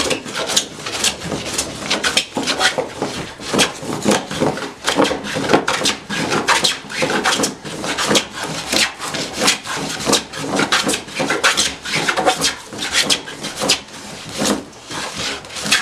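Wooden coffin smoothing plane with an unsharpened, nicked blade shaving a board in quick, rough strokes, about two a second.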